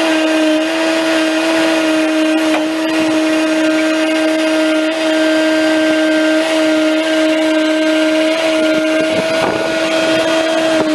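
Bobcat track loader running an SG60 stump grinder attachment: a steady, unbroken high-pitched hydraulic motor whine.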